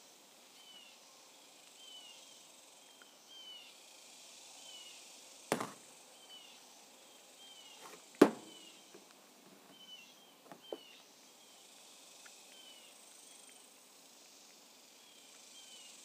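A steel hydraulic cylinder piston being handled and set down on a steel workbench: a sharp knock about five and a half seconds in, a louder clank just after eight seconds, then two light clinks. Behind it, a faint high chirp repeats steadily, a bit more than once a second.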